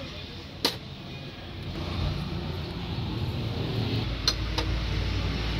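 Sharp metal clicks from small injector parts and bolts being handled, one near the start and two in quick succession about four seconds in, over a low engine-like rumble that grows louder about two seconds in.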